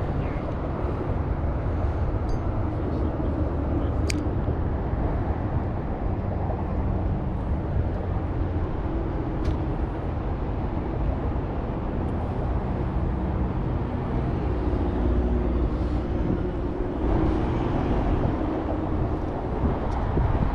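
Steady wind rumbling against the microphone, with a few faint clicks.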